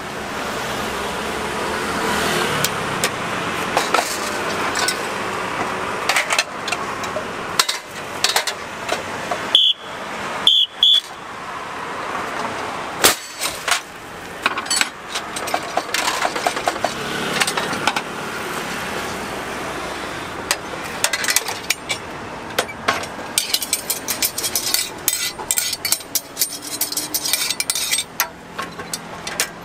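Puffed-rice pressure popper being worked: a steady rushing noise with metal clanks and clicks, then a sharp bang about thirteen seconds in as the drum's pressure is released in a burst of steam. After that comes scattered metallic clinking and rattling as the opened drum is cleared with a rod.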